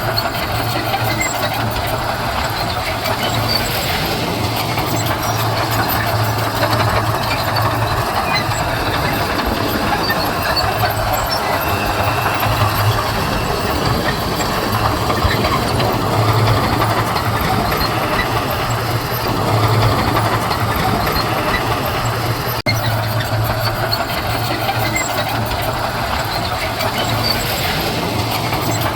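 Heavy earthmoving machine's diesel engine running steadily under load, with a constant low hum and a dense mechanical clatter and rumble over it.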